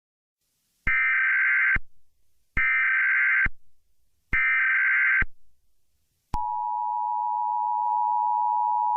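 Emergency Alert System SAME header: three bursts of high data tones, each about a second long with short gaps between. About six seconds in, the steady two-tone EAS attention signal starts and holds.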